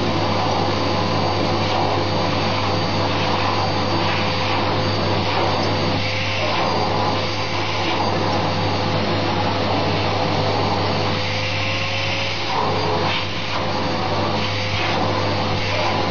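Vacuum cleaner running steadily with a constant whine, its hose nozzle being run over a cat's fur.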